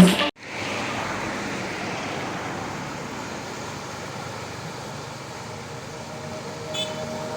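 Steady rushing noise of fast-flowing flash-flood water, following a brief cut-off drum hit at the very start.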